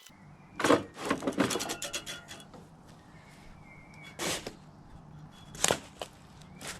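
A few sharp knocks and a short rattling cluster, over a faint steady low hum.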